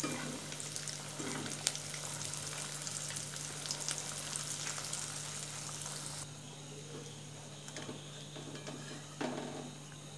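Breadcrumbed egg chop deep-frying in hot oil in a metal kadai: a steady sizzle with fine crackling as hot oil is ladled over its top with a perforated metal spoon, which keeps the crust from splitting. The sizzle turns quieter about six seconds in.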